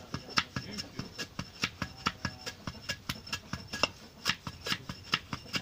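Metal hand plane shaving a wooden stick in quick short strokes, a rapid even scraping of about four or five strokes a second.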